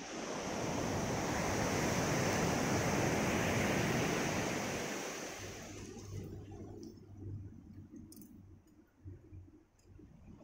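Surf breaking and washing up a gravel beach: a wide rush of water noise swells in, holds for a few seconds and dies away about halfway through. It leaves a quieter low rumble with a few faint clicks.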